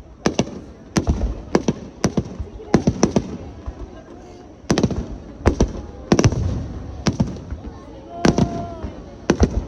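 Aerial fireworks shells bursting one after another: a dozen or more sharp bangs at uneven intervals, some in quick pairs, each followed by a low rolling rumble.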